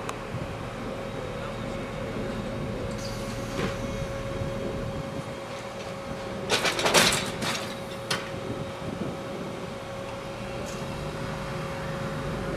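Mariazellerbahn narrow-gauge electric train running: a steady rumble with a constant hum. A short cluster of clacks comes about six and a half seconds in, and one more clack about a second and a half later.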